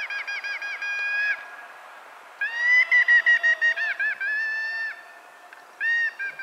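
A signal horn blown in phrases of long held notes and quick runs of short notes, with short pauses between phrases.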